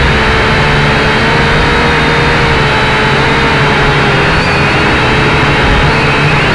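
A drone's electric motors and propellers in flight, heard through the camera mounted on the drone: a loud, steady buzzing whine whose pitch drifts slightly as the motor speed changes.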